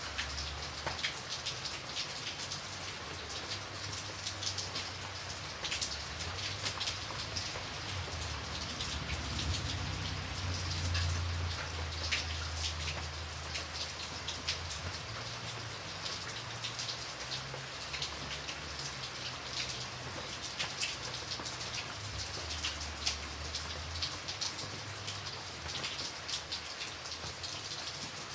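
Light rain falling steadily, a dense patter of individual drops hitting a surface over a soft hiss. A low rumble runs underneath, swelling about a third of the way in.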